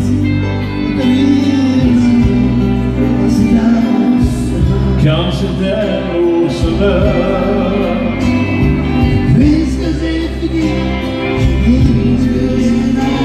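A man singing a French-language Quebec country song into a microphone over a recorded backing track of band accompaniment.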